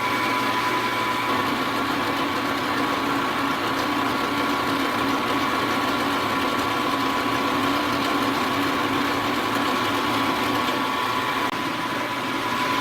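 Milling machine running steadily, its spindle motor giving an even hum with a thin, constant whine, while the machinist takes cuts on the part.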